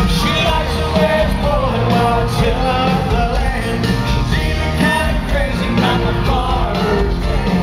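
Live country band playing at full volume with a singer's voice over it, recorded from within the concert crowd.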